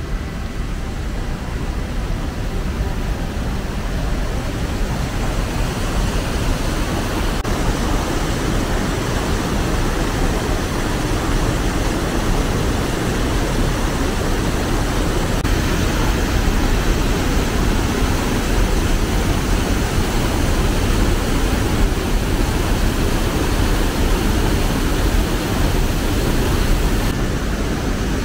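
Mountain stream rushing over a small waterfall: a steady, loud rush of water that grows louder over the first few seconds.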